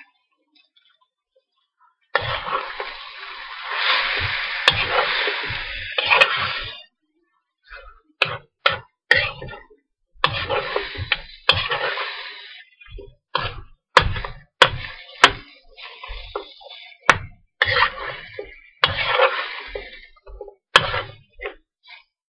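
Metal spatula scraping and knocking against a metal wok while diced chicken is stirred, starting about two seconds in: stretches of scraping hiss broken by many sharp clanks of the utensil on the pan.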